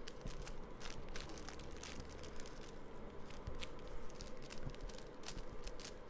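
Faint handling noises: scattered light clicks and rustles of hands working air-dry clay and a clay mould.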